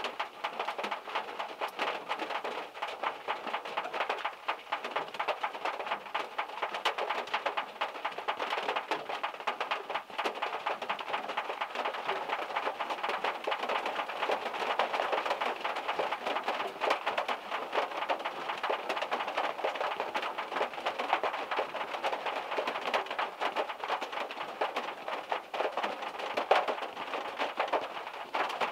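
Rainstorm rain falling on a small car and on the wet ground, with drops from the trees above hitting the car. It is a steady, dense patter of countless drops that keeps an even level throughout.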